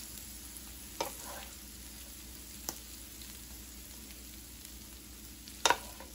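Wooden spoon scraping cooked steak, pepper and onion filling out of a metal skillet, over a steady low hiss. The spoon knocks against the pan a few times: once about a second in, lightly near the middle, and a louder double knock near the end.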